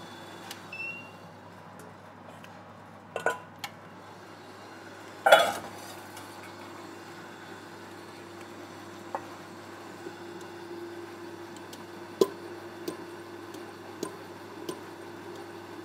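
Stand mixer running with a steady low hum as its beater works butter, sugar and egg into cake batter in a stainless-steel bowl. A few short clinks against the metal bowl come about three and five seconds in, and once more near the end.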